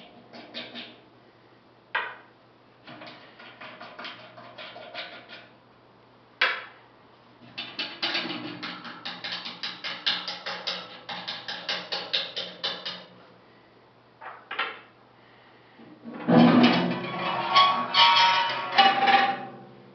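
Metal handling noises as a stainless-steel screw feeder is taken apart by hand: bursts of rapid clicking and rattling as the discharge tube is worked loose, a few single sharp knocks, and near the end the loudest stretch, a dense metal clattering and scraping as the front panel is handled.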